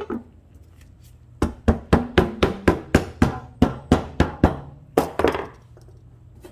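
A mallet tapping the lid back onto a metal gallon can of epoxy primer: a quick run of about fifteen sharp taps, roughly four a second, then two more after a short pause.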